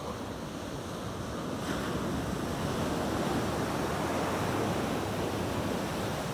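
Ocean surf breaking and washing up the sand. The rush swells about a second and a half in and eases off near the end.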